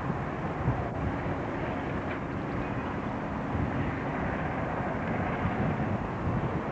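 Steady drone of distant diesel locomotive engines running in a yard, with a faint low hum held throughout.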